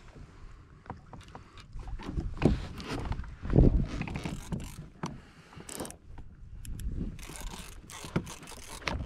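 Handling noise of an angler working a rod and conventional reel from a plastic fishing kayak: irregular clicks and knocks of gear against the hull, with a heavier thump about three and a half seconds in, over a low wind rumble.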